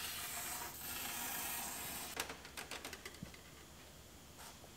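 Aerosol cavity wax spraying through an extension wand into a car door's inner cavity: a steady hiss for about two seconds that then stops, followed by a few light clicks.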